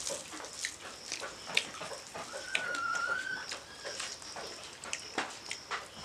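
Eating by hand from steel plates: wet lip smacks, chewing and fingers mixing rice, in a string of short sharp clicks. About two seconds in, a thin high whine sounds for about a second.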